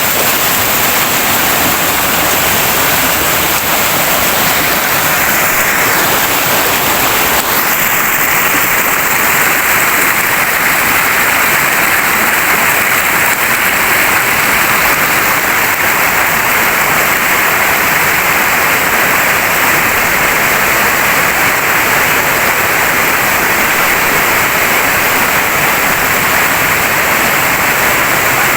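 Steady, loud rush of flowing, falling water from a mountain stream.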